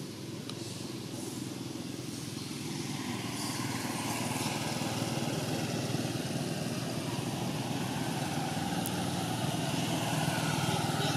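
A motor engine running steadily, growing louder about three seconds in.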